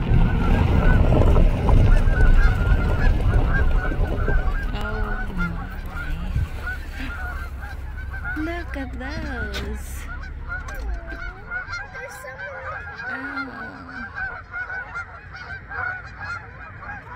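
A large flock of Canada geese honking, many short calls overlapping in a continuous chorus. A low rumble is loudest over the first few seconds.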